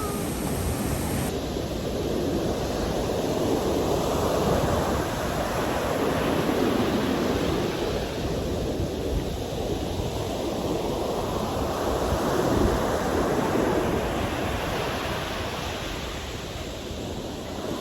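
Sea surf washing onto a beach, swelling and falling back every several seconds, with wind on the microphone.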